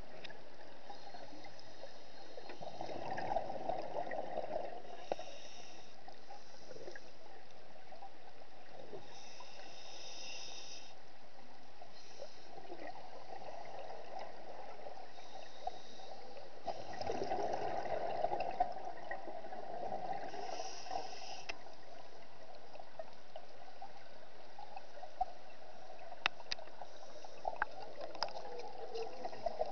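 Scuba diver breathing through a regulator underwater: bubbly, gurgling exhalations every several seconds with short hisses between them, and a few sharp clicks near the end.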